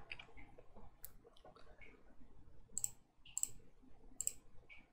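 Several faint, sharp computer mouse clicks spread over a few seconds, irregularly spaced.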